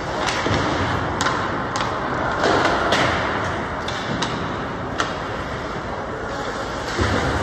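Ice hockey play on a rink: a scatter of sharp clacks of sticks and puck over a steady rink background noise.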